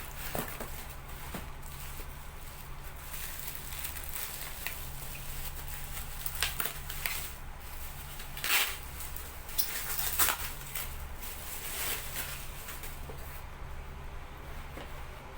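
Rustling, scraping and light tapping of packaging being handled and opened, in scattered short bursts over a steady low hum. Two louder scrapes come a little past halfway.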